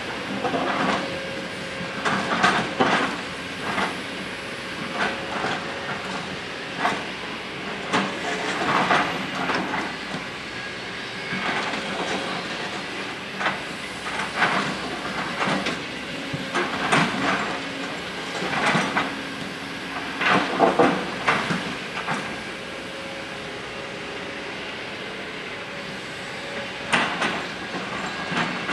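Kobelco SK200 excavator running steadily while its bucket scrapes at a rock cliff face, with irregular bursts of scraping and rattling as dirt and stones break loose and fall.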